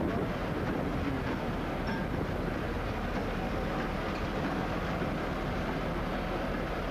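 ST44 (M62) diesel locomotive moving slowly past at close range. Its two-stroke V12 diesel engine runs steadily, with the running gear rolling on the rails.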